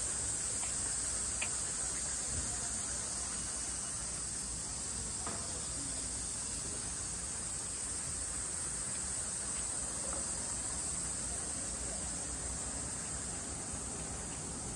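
Steady high-pitched hiss of outdoor background noise, with a few faint clicks.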